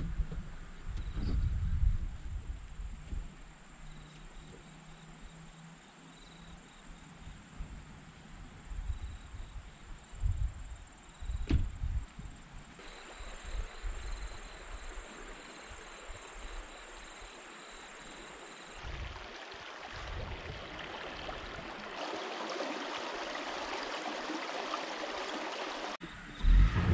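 Outdoor ambience: gusts of wind buffeting the microphone and a steady high-pitched insect whine. The wind rushes more strongly over the last few seconds.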